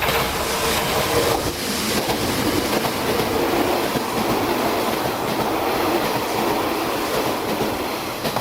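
Kintetsu Nagoya Line electric train passing at close range, its wheels clattering over the rail joints. The sound comes up sharply at the start and stays loud and steady.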